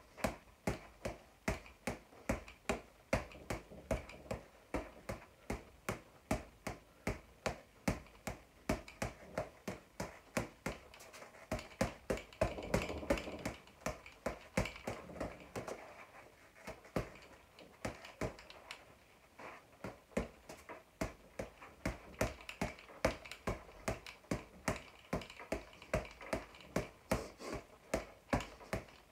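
Boxing gloves striking a floor-to-ceiling ball in a quick, fairly steady rhythm of sharp slaps, roughly three a second.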